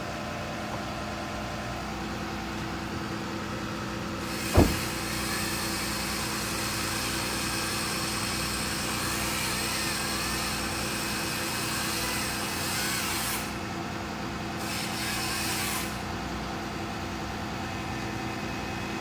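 An engine running steadily, with one sharp thud about four and a half seconds in and a hissing rush that runs for about nine seconds after it, then briefly returns.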